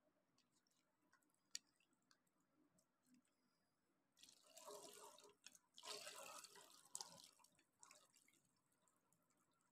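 Faint water sloshing and dripping as parboiled mutton pieces are stirred with a spoon in a glass bowl of water, louder for about three seconds from around four seconds in, with a few light clicks before.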